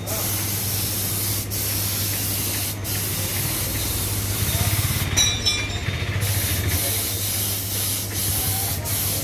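Paint spray gun hissing steadily as it sprays, with a few short breaks in the hiss and a longer one about five seconds in; a steady low hum runs underneath.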